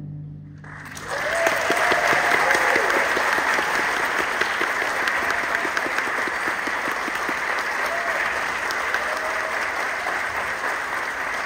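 The orchestra's final chord fades out, and about a second in the audience breaks into steady applause with a few cheering shouts.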